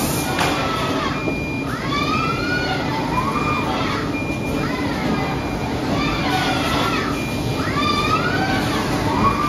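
Robot palletizer arm's servo motors whining, pitch rising and falling with each move, about once a second, over a steady noise of factory machinery.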